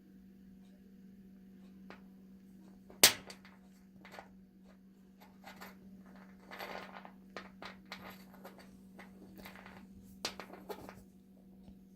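Scattered clicks and light knocks of small hard objects being handled, with one sharp, loud click about three seconds in and a cluster of clicks near the end, over a steady low hum.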